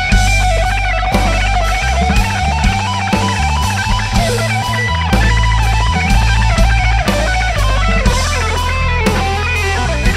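Electric guitar solo from a Stratocaster-style guitar, with sustained lead notes that bend in pitch, over bass guitar and a drum kit played live by a rock trio.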